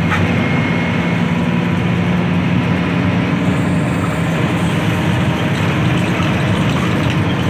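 Intercity bus's diesel engine running with a steady low drone of engine and road noise.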